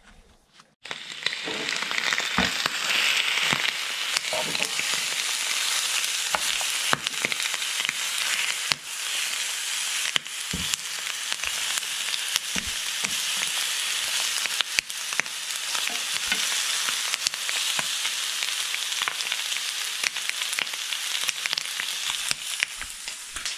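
Chunks of meat on the bone frying in a hot pan: a steady sizzle with scattered pops and crackles, starting suddenly about a second in.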